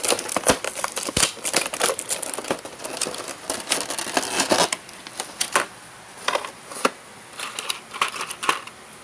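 Clear plastic packaging, a bag and blister trays, crinkling and clicking as it is handled and pulled open, with dense irregular crackles for about five seconds, then sparser ones.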